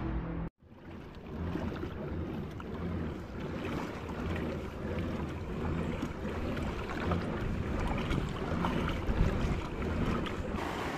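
Music cuts off about half a second in; then wind buffets the microphone over water sloshing and lapping around a kayak at sea.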